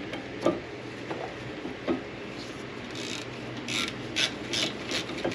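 Hand tools and metal parts being worked on a car's rear brake caliper: scattered knocks and scraping, with a run of short clicks near the end.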